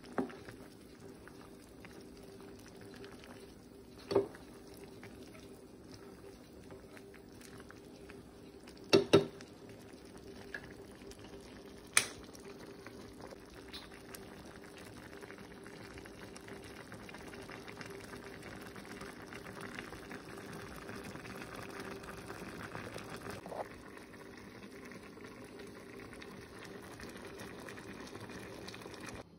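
Pot of creamy chicken-and-fusilli broth bubbling steadily at a boil while being stirred. A metal spatula clinks sharply against the pot's rim several times in the first twelve seconds, loudest in a quick double knock about nine seconds in.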